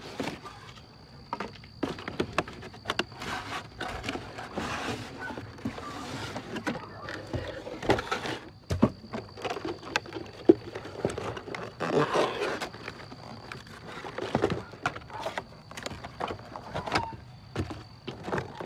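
Cardboard packaging being handled: rustling, scraping and short knocks as the truck and its parts are slid out of the box and its inserts.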